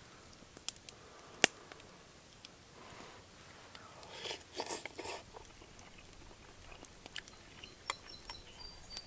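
A person eating a spoonful of ramen noodle stew: a few sharp clicks of a utensil against the dish, the loudest about a second and a half in, then chewing around four to five seconds in.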